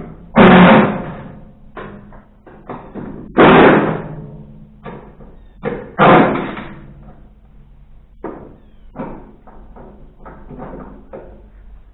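Metal hatch on a DR PRO XL575 wood chipper's housing being worked open: three loud metallic bangs about three seconds apart, each ringing briefly, followed by lighter knocks and clatter.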